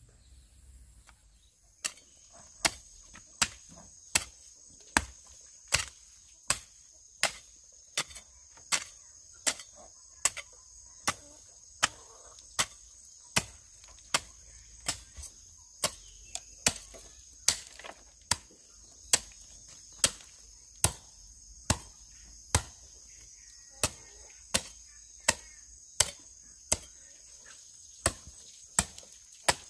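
Long-handled metal hoe chopping into dry, mulched soil in a steady rhythm, about one stroke every 0.8 seconds, starting about two seconds in. Insects shrill steadily behind it.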